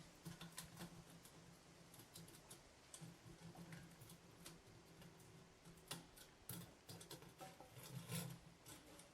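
Faint, irregular snips and clicks of a metal chimney liner being cut to length by hand.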